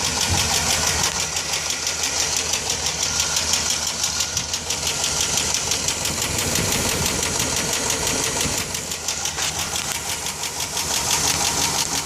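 Chevy engine running with a rapid, steady ticking from the top end, which the owner is pretty sure is a bad lifter.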